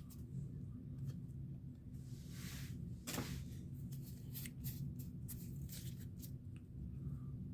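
Quiet handling of Pokémon trading cards and booster-pack wrappers: scattered soft clicks and rustles, with a longer rustle about two seconds in, over a steady low hum.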